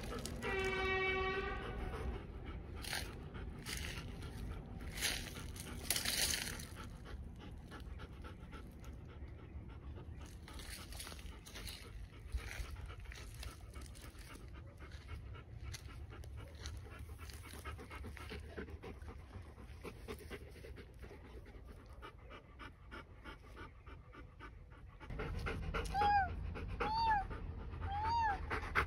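Bernese mountain dog panting. About a second in there is a short pitched tone, and a few seconds in a patch of sharp clicks. Near the end, short high rising-and-falling calls repeat about once a second over the panting.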